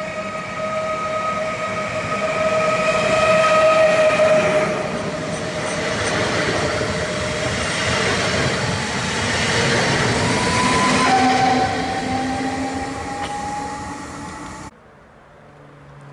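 Koleje Śląskie EN76 electric multiple unit (Pesa Elf) running through the station at speed without stopping. A steady high tone in the first few seconds gives way to loud rolling wheel noise as the train passes close, and a whine drops in pitch and then glides slowly upward. The sound cuts off abruptly near the end.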